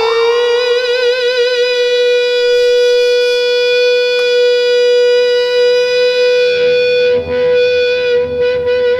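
Electric guitar with a sustainer pickup holding one high note unchanging for the full nine seconds, kept ringing by the sustainer rather than by picking. Some light string and handling noise comes in under the note over the last couple of seconds.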